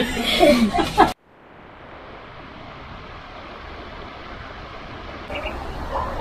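Voices talking for about a second, cut off abruptly, then a steady rushing hiss of a shallow stream running over rocks fades in and holds.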